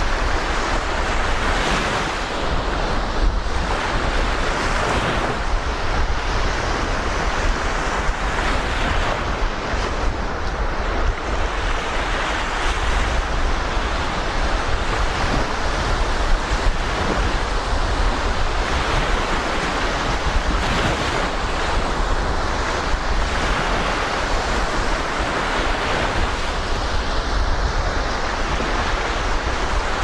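Black Sea surf washing onto the beach, with wind buffeting the microphone as a low rumble.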